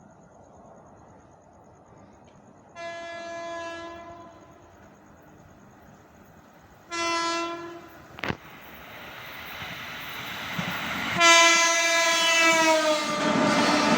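A passing train's horn sounds three times: a blast of about a second, a shorter one, then a longer blast that slides down in pitch as the train goes by. The noise of the train grows steadily louder through the second half, with a sharp click just after the second blast.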